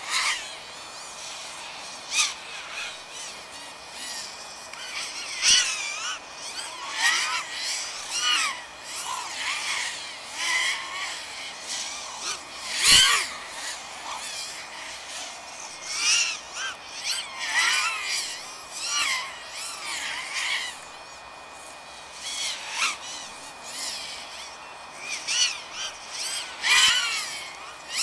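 FPV racing quadcopter motors whining, the pitch swooping up and down over and over as the throttle changes, with a sharp knock about halfway through.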